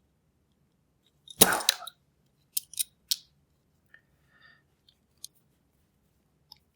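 Parts of a 2-lever cabinet lock being pulled apart by hand. There is a loud scraping clatter about a second and a half in as a piece comes off, then three sharp metallic clicks and a few faint ticks.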